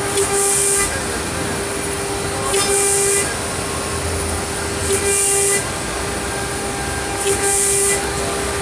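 CNC router's high-speed spindle running with a steady whine while it cuts a grid of holes in a metal sheet. Each hole gives a short, louder high hiss, four in all, about every two and a half seconds.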